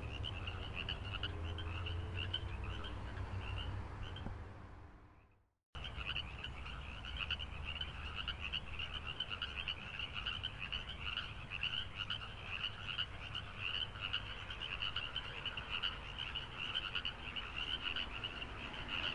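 Chorus of frogs calling, a dense pulsing trill over a low rumble. It fades out about five seconds in, stops briefly, then starts again abruptly.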